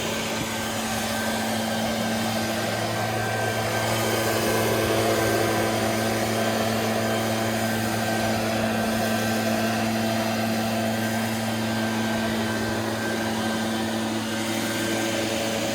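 ECHO PB-580T 58.2cc two-stroke backpack leaf blower running steadily at high throttle, a constant engine whine with the rush of air from its tube.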